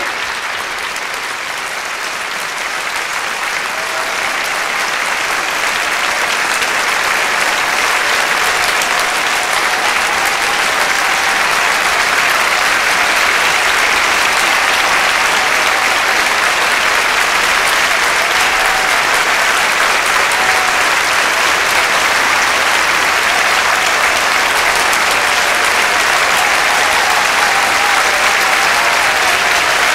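Audience applauding steadily, the clapping building a little over the first few seconds and then holding.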